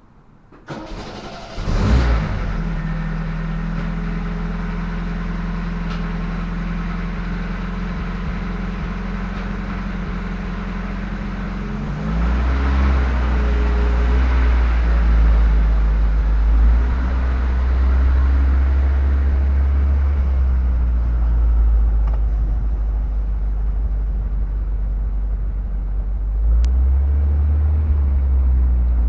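MGB's 1.8-litre four-cylinder engine cranks and starts about two seconds in, then idles steadily. About twelve seconds in its pitch dips and it runs deeper and louder under load as the car reverses, rising again briefly near the end.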